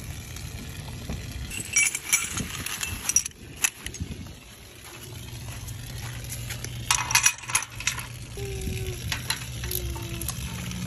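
Galvanised steel trailer-jack parts and bolts clinking and knocking as they are handled and fitted, in a few short clusters of sharp clinks over a steady low hum.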